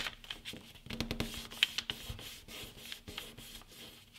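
A sheet of printer paper being handled and folded: rustling and rubbing with a string of small crackles as it is creased.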